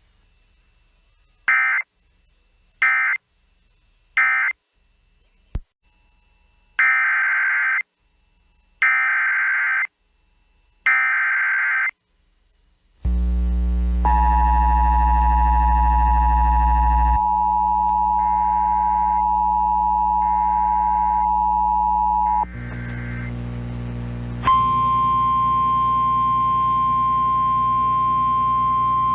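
Emergency Alert System digital data bursts: three short bursts of the end-of-message code, then three longer bursts of the header for the next warning. Then the two-note EAS attention signal sounds for about eight seconds, and about two seconds after it stops, the steady single-pitch NOAA Weather Radio warning alarm tone begins, all over a low hum.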